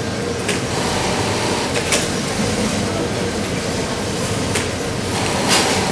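Many JUKI industrial sewing machines running together, a steady mechanical din broken by a few sharp clicks.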